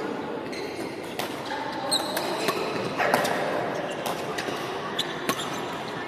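Badminton rally in a large hall: a string of sharp racket hits on the shuttlecock at irregular intervals, echoing, with a few high shoe squeaks on the wooden court about two seconds in and a low background murmur of voices.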